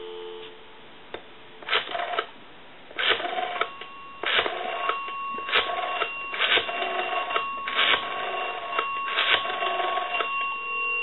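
Western Electric 202 rotary desk telephone dialing a seven-digit number. The dial tone cuts off about half a second in, then come seven short bursts of dial pulses, one per digit and about a second apart, with the phone's bell tinkling along. A steady ringback tone comes on near the end as the call goes through.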